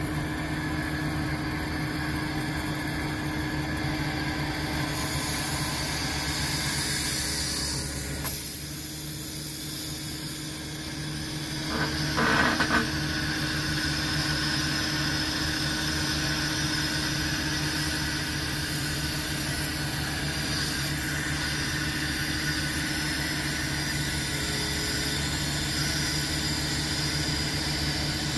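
Engine running steadily at idle, a low even hum, with a short cluster of metallic knocks about twelve seconds in.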